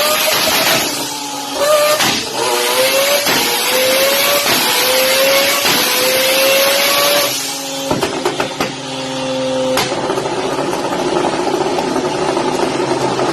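A performance car engine accelerating hard, its pitch climbing and dropping back with each of several quick gear changes. Near the end of the pull the throttle closes with a few sharp exhaust pops, and the engine then settles into a steady, lower running note.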